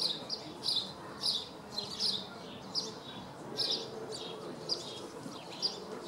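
Barn swallow twittering: a string of short, high chirping notes coming irregularly, one to two a second, over a faint steady low hum.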